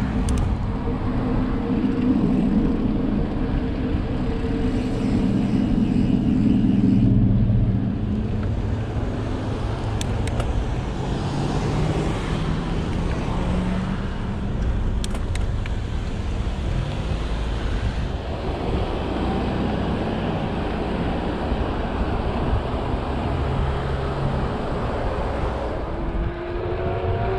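Slow car traffic heard from close behind on a bicycle: car engines running at low speed with steady road rumble, loudest over the first several seconds. A few short clicks around the middle, and a new rising tone near the end.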